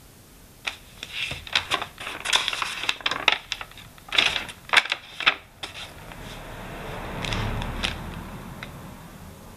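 A thick page of a hand-drawn notebook being turned by hand, crackling and rustling in a quick run of sharp clicks. About six seconds in, a softer brushing follows as the hand presses the open pages flat.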